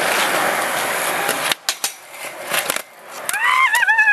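Skateboard wheels rolling on concrete, a loud even hiss that stops about a second and a half in, followed by a few sharp clicks from the board. Near the end comes a high call that wavers in pitch.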